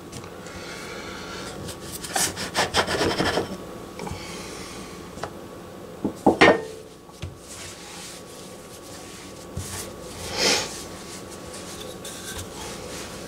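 A round dough cutter scraping and grinding against a hard floured countertop as pastry circles are cut from rolled dough. About six seconds in, a few sharp knocks are the loudest sounds, and there is another short scrape near the ten-second mark.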